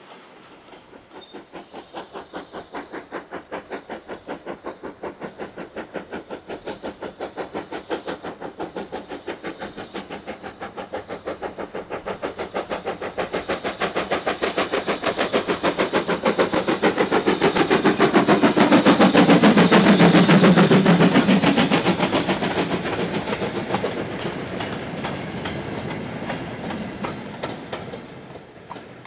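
BR Standard 9F 2-10-0 steam locomotive working hard uphill with a goods train, its exhaust beats coming fast and evenly. The beats grow louder as it approaches, are loudest about two-thirds of the way through as it passes, then fade as the wagons roll by.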